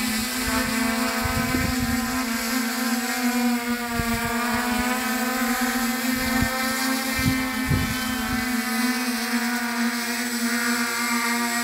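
Hexacopter's six electric motors and propellers whining steadily in a hover while carrying a heavy payload of 1.65 kg plus 1 kg of batteries, the pitch wavering slightly as the throttle corrects.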